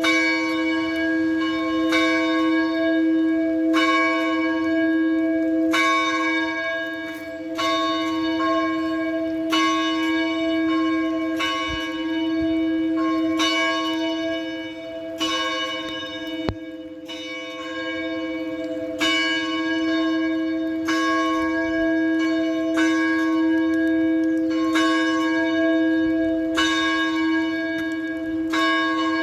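Church bell ringing, struck about once every two seconds, each stroke ringing on into the next over a steady hum.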